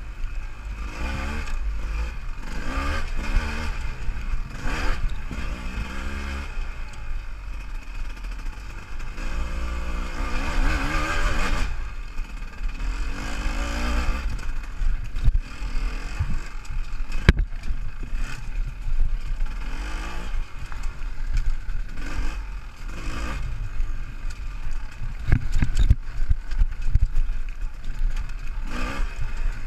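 Enduro motorcycle engine heard from on board, revs rising and falling as the rider opens and closes the throttle over a rough dirt trail. Sharp knocks and clatter come now and then as the bike hits bumps.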